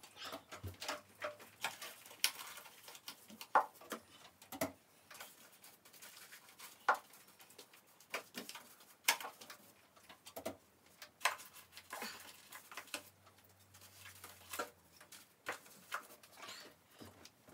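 A 3-inch paintbrush dabbing and stroking paint onto a wall: irregular soft taps and brushing, a few each second.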